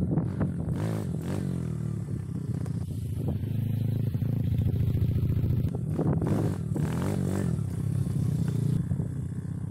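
Kayo TT140 dirt bike's 140cc four-stroke single-cylinder engine revving up and down in short bursts, settling to a steady idle for a couple of seconds in the middle, then revving again as the bike pulls away.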